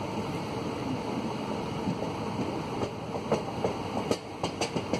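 Moving passenger train coach heard from its doorway: a steady rumble of wheels on the rails. In the second half comes a quick run of sharp wheel clacks over the track.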